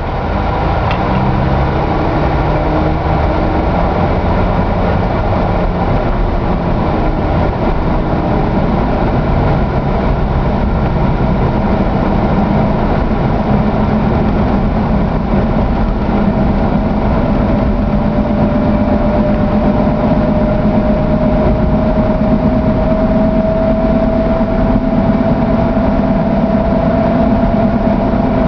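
A motor vehicle's engine running steadily at idle. From about halfway in, a faint whine rises slowly in pitch.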